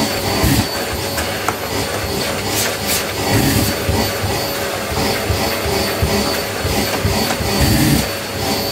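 Vacuum cleaner running steadily with a constant whine as its nozzle is worked over a mattress to pull up dust, with irregular low bumps as the head moves across the fabric.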